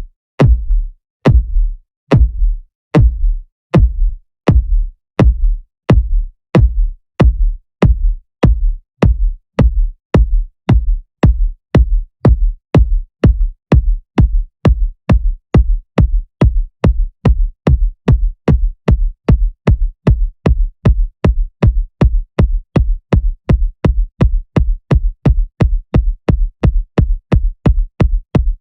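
Electronic kick drum hit repeatedly on its own, each hit a sharp click over a deep tone that drops in pitch. The hits steadily speed up, from a little over one a second to about two and a half a second.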